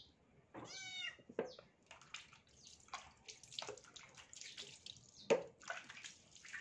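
A wet kitten meows once, about a second in, while being bathed. Then water splashes and pours in a basin as it is scooped over the kitten with a cup, a loud splash coming about five seconds in.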